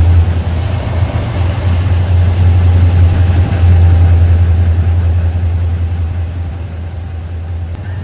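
Diesel locomotive engine running, a steady deep rumble that eases a little near the end.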